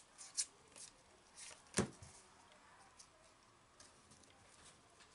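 Pokémon trading cards sliding and flicking against each other in the hands as a fresh pack is flipped through: a few soft card flicks in the first two seconds, the loudest a sharp snap just under two seconds in, then only faint rustling.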